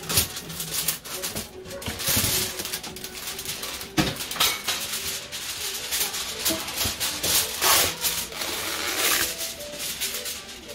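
Aluminium foil crinkling and rustling in irregular bursts as it is pulled from its roll and handled.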